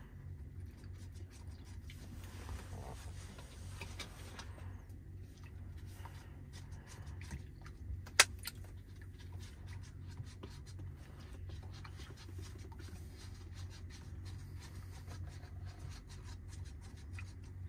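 Low steady hum in a MAN TGX truck cab, with frequent small clicks and rustles of handling, and one sharp click about eight seconds in.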